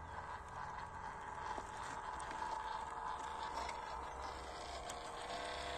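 Electric motor and two-speed gearbox of a WPL 1/16 scale RC crawler whining steadily as it crawls up a steep dirt and rock slope, with a few small clicks of tyres on gravel.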